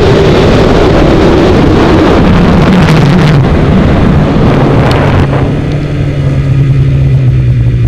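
2012 Polaris 800 Pro RMK snowmobile's two-stroke twin running hard with wind rushing on the helmet microphone. The revs fall slowly over the first few seconds, then settle to a steadier, lower drone about five seconds in as the sled slows.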